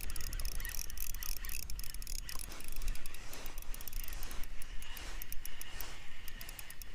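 Spinning reel ticking in quick, uneven clicks while a hooked trout is played and reeled in, over a low rumble.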